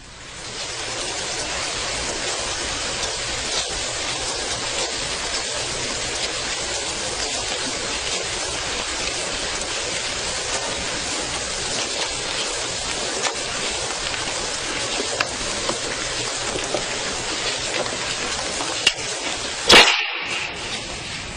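Many retreatants walking fast around a Chan meditation hall, a steady shuffle of footsteps on the floor. Near the end comes a single sharp crack, the signal to halt, after which the shuffling dies down.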